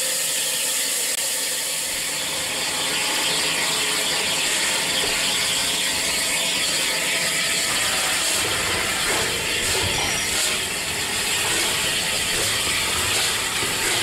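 Bulleid West Country class steam locomotive 34007 Wadebridge moving off slowly, with a mechanical clatter from the moving engine and steam. It gets fuller and louder about two seconds in as the engine comes past.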